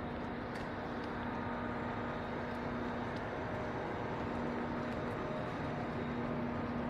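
Steady mechanical hum: constant low and mid tones over an even background rush, with a few faint ticks.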